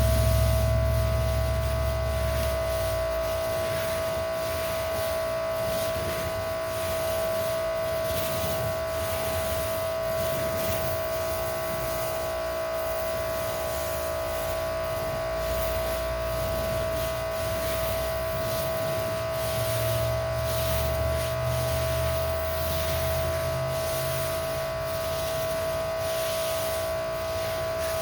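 Electric pressure washer running steadily with a constant high-pitched whine, over a changing low rumble.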